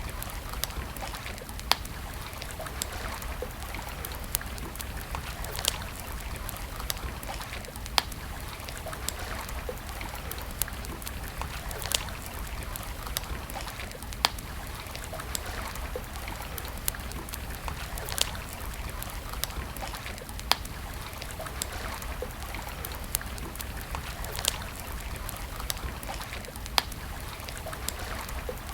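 Wood campfire crackling: sharp pops and snaps every second or two over a steady hiss and low rumble.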